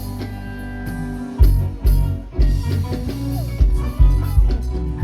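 Music with a heavy bass beat that comes in about a second and a half in, pulsing roughly twice a second.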